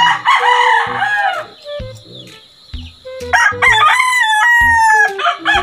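Roosters crowing: a loud call at the start, then a longer crow from about three seconds in that ends in a long, slowly falling note.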